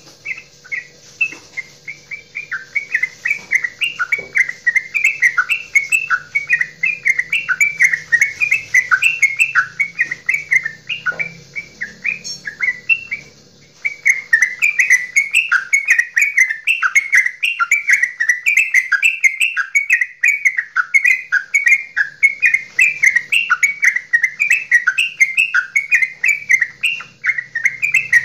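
Caged yellow-vented bulbul (trucukan) singing its long 'goklikan' song: a fast, unbroken string of short chattering, warbling notes. It stops for a little under two seconds about halfway through, then picks up again just as fast.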